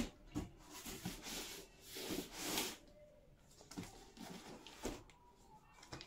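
A cardboard shipping box being handled and turned over: cardboard and packing tape scraping and rustling, with a few light knocks.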